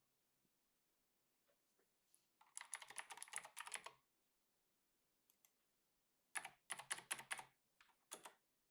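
Typing on a computer keyboard: two quick runs of keystrokes about a second and a half long each, then a few more keys near the end.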